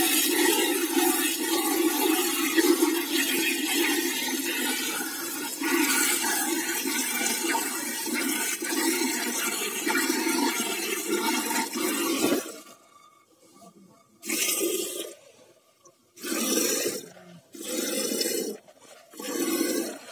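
Hand milking of a buffalo: milk squirting into a bucket, a steady rushing hiss for about twelve seconds, then separate short squirts a second or two apart.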